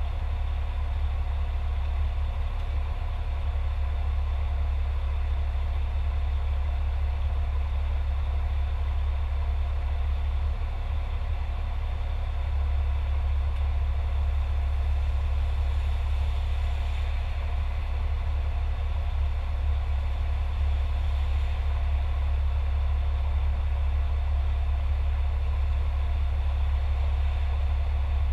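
Fire truck's engine idling steadily, a low hum heard from inside the cab.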